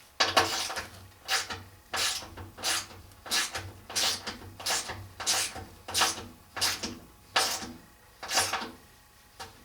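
A hand tool worked in quick repeated strokes, a rasping scrape about twice a second, during rivet-nut fitting.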